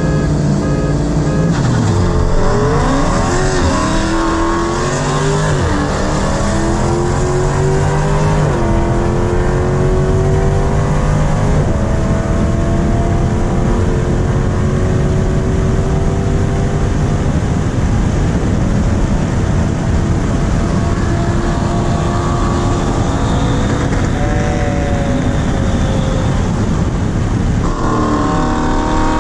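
Dodge Charger Scat Pack's 392 Hemi V8, fitted with headers and a tune, at wide-open throttle, its pitch climbing and dropping back at each of several upshifts in the first dozen seconds. It then holds speed under heavy wind and road noise, and the engine note falls away near the end as the car slows.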